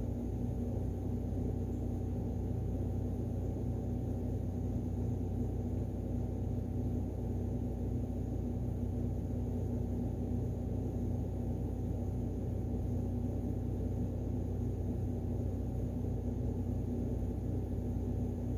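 Steady low mechanical hum with a few held tones in it, unchanging throughout: the room's background drone.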